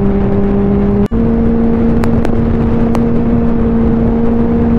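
Benelli 600i's inline-four engine cruising at highway speed, a steady drone under rushing wind and road noise. About a second in the sound cuts out for an instant and returns with the engine note slightly higher.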